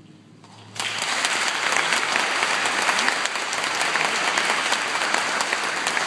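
A small audience clapping, breaking out suddenly a little under a second in as the last sung note of the piece dies away, then going on steadily.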